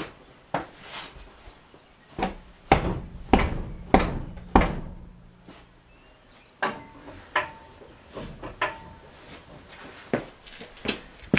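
Irregular knocks and metal clanks from tools working on a truck's front shock mount. The loudest cluster comes about two to five seconds in, and a few knocks later on ring briefly like struck metal.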